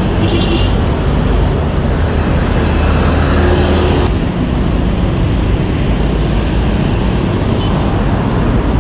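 Road traffic with a motor scooter's engine running close alongside for the first four seconds or so, over a steady low rumble.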